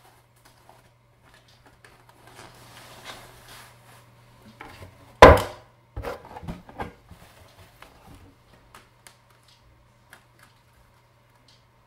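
Handling noise as a power supply is lifted out of its velour bag and cardboard box: soft fabric rustling, then a sharp knock about five seconds in, followed by a few lighter clicks and taps. A faint steady hum runs underneath.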